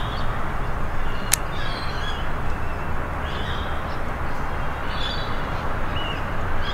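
Short bird calls, scattered throughout, over a steady low rumbling background, with a single sharp click about a second and a half in.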